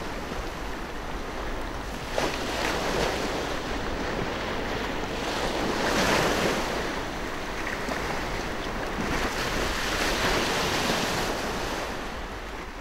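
Sea waves washing onto the shore, the surge swelling and falling away every few seconds, with wind rumbling on the microphone.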